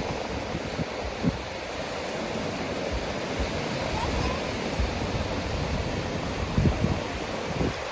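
Sea surf washing onto a beach, a steady rushing noise, with a few short low thumps of wind buffeting the microphone.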